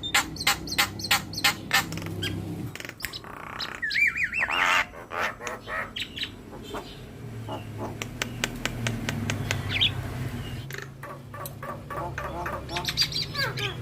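Javan myna singing a varied, chattering song: fast runs of harsh clicking squawks, with a wavering whistled trill about four seconds in.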